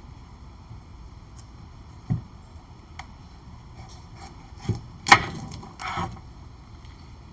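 A handful of short, irregular knocks and clatters, the loudest about five seconds in.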